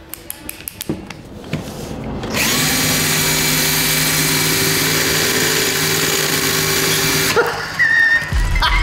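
Bosch cordless drill spinning a bladed fidget spinner mounted in its chuck: after a few light handling clicks, the motor starts about two seconds in and runs at a steady speed for about five seconds with a strong hiss, then stops.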